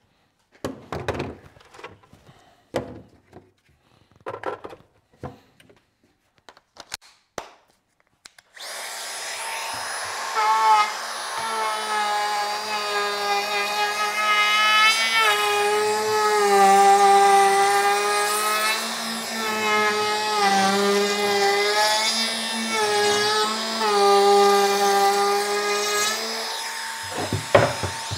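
A few short knocks and clicks, then, about eight seconds in, a cordless router starts up and runs steadily, its pitch dipping and recovering as it cuts a 45-degree chamfer along the edge of a solid oak board.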